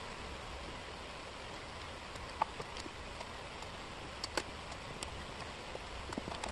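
Thin wooden jigsaw puzzle pieces clicking and tapping against each other and the table as they are picked up and fitted, a few scattered clicks over a steady hiss.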